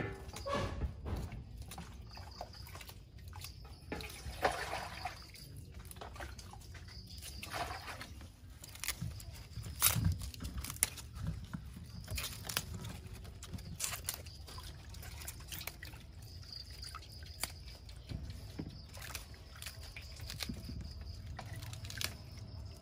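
Crisp leaf lettuce being torn apart and rustled by hand: irregular snaps and crackles of stems and leaves.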